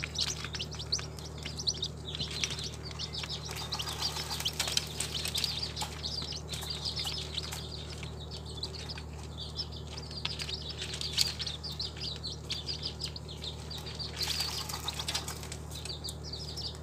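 Small birds chirping and twittering rapidly and continuously in high-pitched notes, over a steady low hum, with louder stretches about four seconds in and again near the end.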